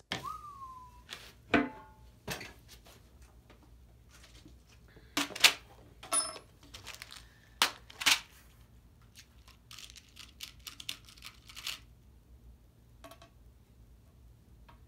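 Workshop handling noises: a short squeak and several sharp knocks and clicks, then the crinkling and tearing of a plastic bag of threaded inserts being opened, with light clinks of the small metal parts.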